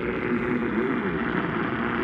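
Steady radio static and hiss from a weak weather-radio broadcast, with a faint voice buried underneath it.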